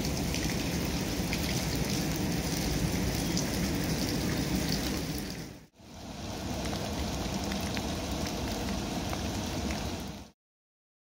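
Steady rain falling, with scattered individual drops pattering. It dips out and back in about six seconds in, and cuts off shortly before the end.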